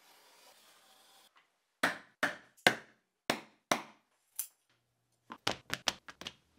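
Faint scrape of a blade drawn through leather along a metal ruler, then a hand-held spring-loaded punch clicking sharply as it punches stitching holes in leather, about one click every half second. A quicker run of clicks and taps follows near the end.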